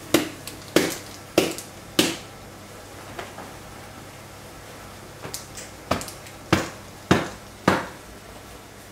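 Glass loaf dish full of raw chicken-loaf mixture knocked down again and again to pack the mixture: sharp knocks, four in quick succession, then after a pause five more about every half second.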